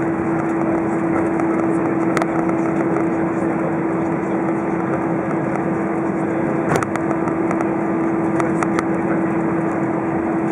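Cabin noise of an Airbus A320 taxiing after landing: the engines at idle give a steady drone with a constant low hum. A few light clicks come through, one about two seconds in and a few more around seven to nine seconds.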